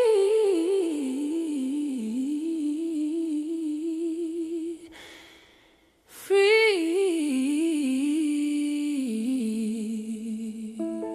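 Unaccompanied wordless humming of a slow, wavering soul melody in two phrases, with a brief silence between them about halfway through. Piano notes come in right at the end.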